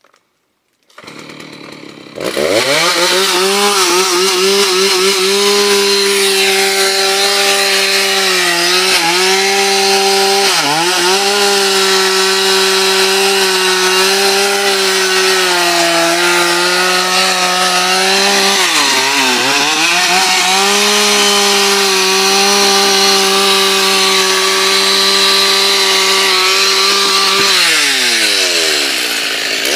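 Chainsaw revved to full throttle about two seconds in, cutting steadily into a dry, long-dead candeia log. Its pitch dips briefly a few times as it bogs under load, and it winds down near the end as the cut eases.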